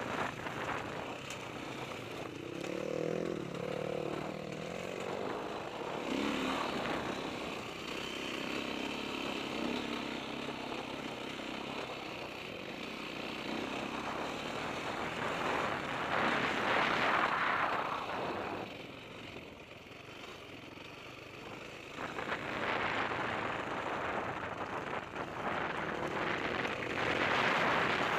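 Dirt bike engine running under changing throttle, heard over wind and rumble on the bike-mounted camera's microphone. It drops back for a few seconds about two-thirds of the way through, then picks up again.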